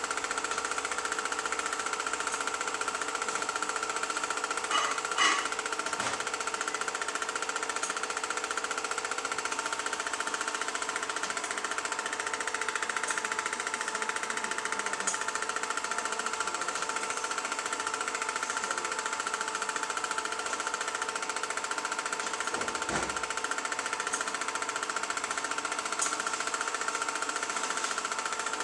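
Film projector running with a steady, rapid mechanical clatter and a motor hum, the sound of an old silent home movie being projected while it is re-filmed.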